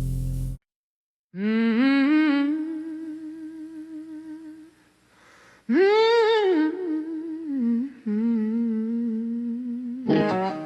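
A blues song ends on a held chord that cuts off suddenly. After a brief silence, a woman hums a slow, wavering melody in two long phrases, and guitar comes in near the end as the next song starts.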